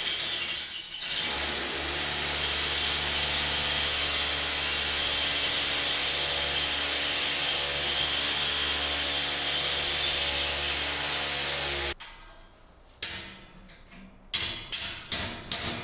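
Electric drill boring into a tiled concrete floor, running steadily for about eleven seconds and then stopping abruptly. Near the end, a hand hammer strikes metal in quick repeated blows, about three a second.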